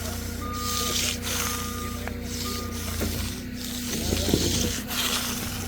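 A heavy truck's engine running steadily while its reversing alarm beeps three times, about once a second, then stops.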